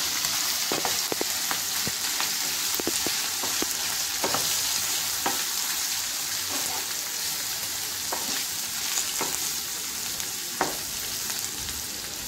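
Brinjal and potato pieces sizzling in hot oil in a nonstick frying pan as a wooden spatula stirs the ground spices through them, with scattered knocks and scrapes of the spatula on the pan. The spices are being fried in the oil.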